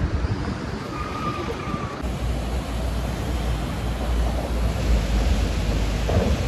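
Teesta River rushing in whitewater rapids over a rocky bed: a steady roar of water, with wind buffeting the microphone from about two seconds in.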